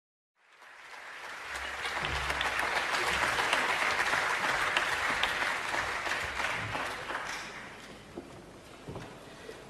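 Applause: a crowd clapping, swelling in after a brief silence and dying away over the last few seconds.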